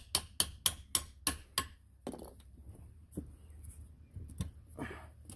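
Hammer tapping the metal-capped end of a screwdriver in sharp, quick strikes, about three a second, driving the old wear ring out of a jet-ski jet pump housing. The taps stop after about a second and a half.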